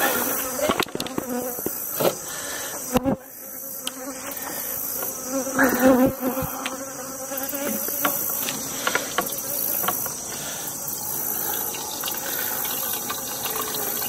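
Honeybees buzzing in a steady hum, with scattered knocks and clicks.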